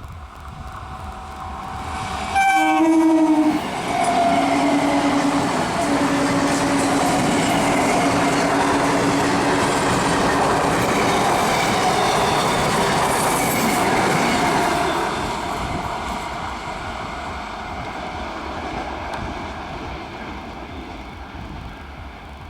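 Indian electric multiple unit (EMU) local train sounding its horn, a short blast and then a long held one, as it runs past with wheels clattering over the rail joints. The noise fades away over the last several seconds.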